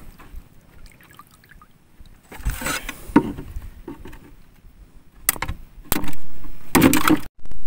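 Seawater splashing and dripping as a speared flatfish is lifted out of the shallows. Near the end come several loud knocks and scrapes as the spear and fish are brought against a plastic tub.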